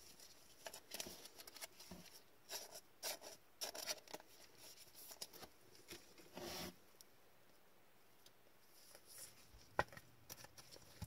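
Faint rustling and small clicks of gloved hands handling a trading card and its clear plastic holder, with one sharper click near the end.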